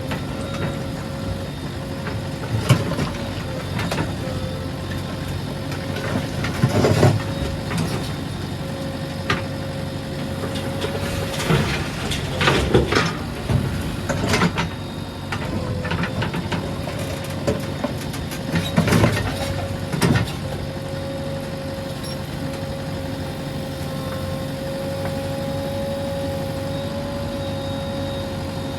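JCB 3DX backhoe loader's diesel engine running steadily under work, with a steady whine. Sharp clanks and thumps come at irregular intervals through the first two-thirds, typical of a digging bucket and boom at work.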